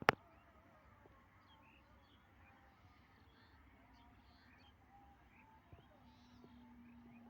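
A single sharp click or knock right at the start, then faint bird chirps scattered over a quiet background, with a low steady hum coming in near the end.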